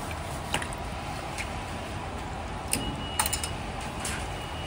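Steady kitchen background noise with a few light, scattered clicks and taps, and a short thin high tone about three seconds in.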